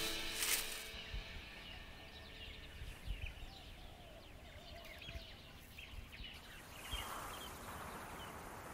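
Quiet outdoor ambience with faint, scattered chirps of small birds, a few soft low knocks in the first half, and a light even hiss near the end.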